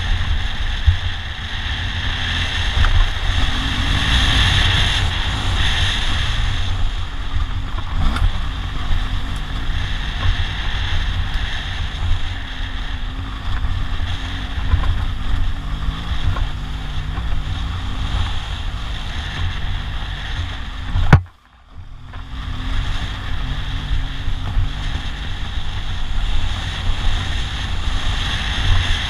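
BMW R1200GS Adventure's boxer-twin engine running under way, largely buried in wind buffeting on the camera microphone. About three-quarters of the way through there is a sharp crack, and the sound drops out for about half a second before coming back.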